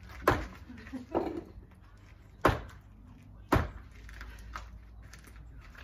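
Three sharp strikes of a metal hand tool against a brick wall as it is knocked down, the first about a quarter of a second in and the others about two and three seconds later.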